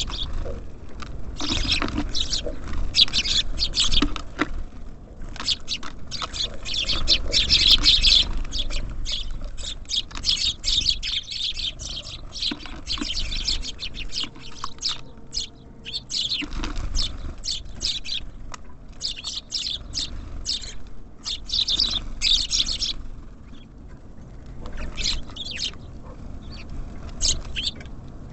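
Small songbirds at a feeder, tits and sparrows, chirping in a dense stream of short, high calls that thins out for a moment near the end, over a low rumble.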